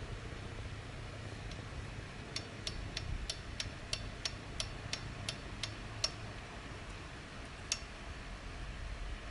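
Suzuki GSX1100S speedometer gear drive clicking about three times a second for a few seconds, then once more, over a low steady rumble: the abnormal clattering noise from the speedometer gear.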